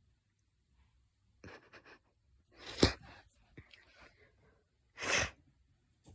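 Heavy breathing: two loud breathy exhales like sighs, the first about two and a half seconds in and the second about five seconds in, with soft rustling and a sharp knock inside the first.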